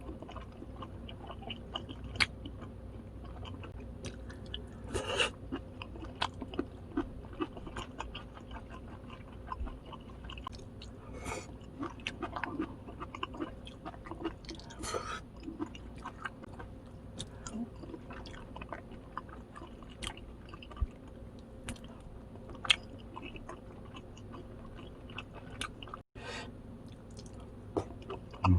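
A person chewing and biting food, close to the microphone, with short sharp clicks scattered irregularly throughout.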